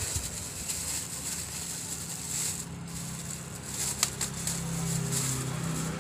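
Plastic wrapping crinkling and rustling as a small flexible-leg gorilla tripod is handled and unwrapped, with a few sharp crackles about four seconds in, over a steady low hum.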